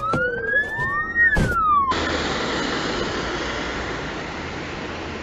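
A siren wailing, its pitch rising and then falling, cut off sharply about two seconds in by a steady hiss.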